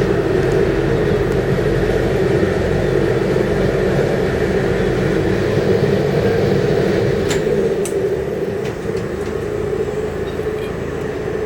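A tour boat's motor running steadily with a constant hum, with a few light clicks about two-thirds of the way through.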